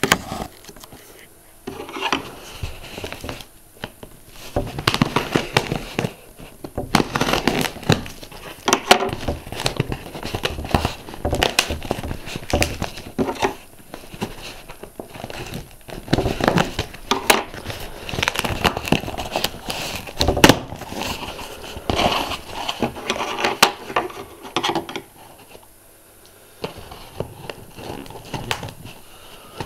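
A cardboard delivery box being forced open by hand: irregular crinkling, tearing and scraping of cardboard with many sharp clicks and knocks, easing off briefly a few seconds before the end.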